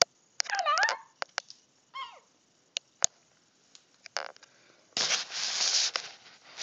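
Crimson rosella calling: a burst of quick, bending whistled chatter about half a second in and a shorter falling call about two seconds in, with a few sharp clicks between. About five seconds in comes a second of loud rustling noise.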